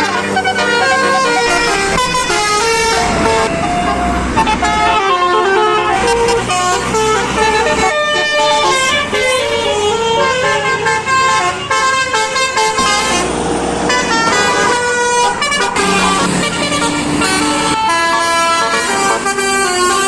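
Basuri telolet bus horns, a set of roof-mounted trumpet horns, playing quick multi-note melodies. The notes step up and down in long runs, broken by short pauses.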